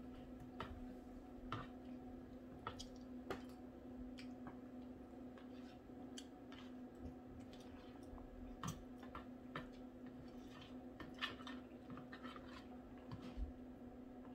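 Faint eating sounds: soft chewing and wet mouth sounds with scattered light clicks and taps, over a steady low hum.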